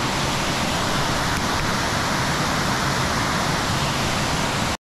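Steady rush of a small waterfall cascading through a rock channel into a pool.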